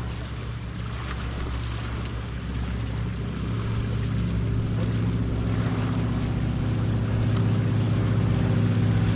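An engine running with a steady hum that grows steadily louder, its pitch rising a little in the second half.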